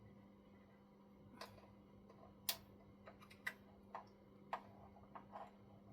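Irregular light clicks and taps of small tools and parts being handled while fitting parts to a model truck. They start about a second and a half in and come roughly every half second, over a faint steady hum.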